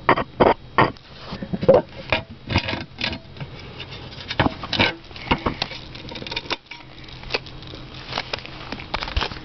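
Irregular clicks, taps and knocks from an old MTX Terminator 15-inch subwoofer being handled, tipped over and set down on concrete. The clicks come thickest in the first second and are scattered after that.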